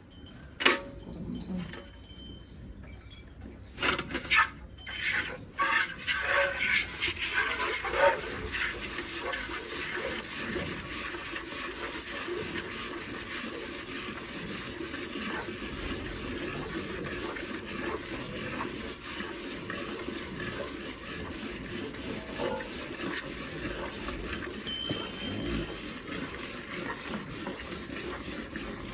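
Milk streaming steadily into a pail, after a few knocks and clicks of handling in the first seconds.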